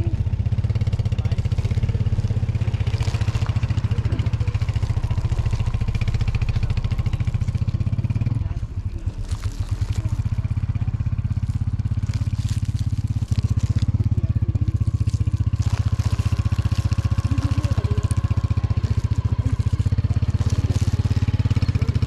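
A vehicle engine idling steadily close by, with a brief dip in level about eight to ten seconds in.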